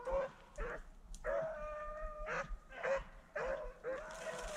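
Rabbit-hunting hounds baying: a string of pitched yelping bays, one drawn out for about a second. It is the cry of hounds running on a rabbit's trail.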